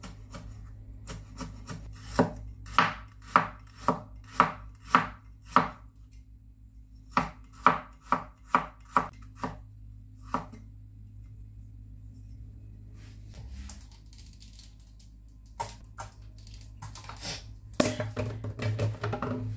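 Chinese cleaver chopping shallots, garlic and ginger on a wooden cutting board: sharp strokes about two a second in two runs, stopping about halfway through. A few scattered knocks follow near the end.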